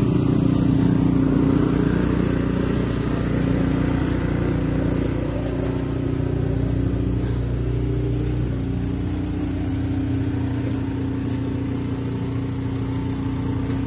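An engine running steadily at an even, unchanging speed. Its lowest notes drop away about eight seconds in.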